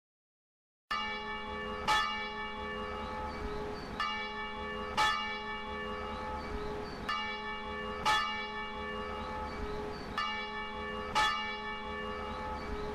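Church bells ringing in a slow, even rhythm, with a heavier stroke about every three seconds and lighter strokes between them. The ringing starts suddenly about a second in.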